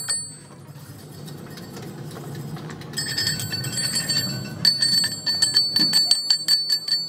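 A hammer striking a steel part again and again, each blow ringing like a bell. The first few seconds are quieter, with a low hum and a few taps, then the blows come fast, about five a second.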